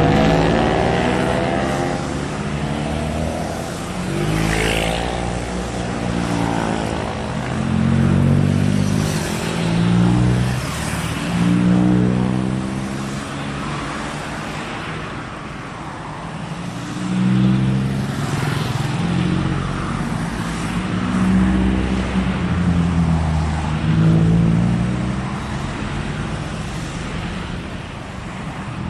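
Car engines revving and passing by, their pitch rising and falling again and again, with swells in loudness every few seconds.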